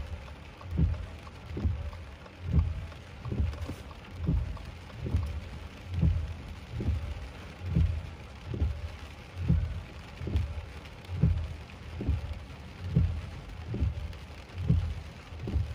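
Heavy rain drumming on a parked car, with the windshield wipers sweeping back and forth, each stroke a low thump a little more than once a second.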